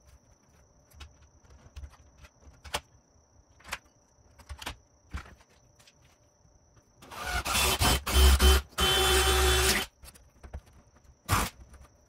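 Power drill boring a hole into the top edge of a door, running for about three seconds with a short break partway through. Before it come a few light clicks and taps, and after it a single sharp click.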